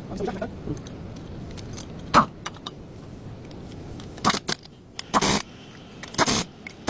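Metal clinks and clanks of hand tools and brake parts being handled: a sharp clank about two seconds in, then short rattling clinks about four, five and six seconds in.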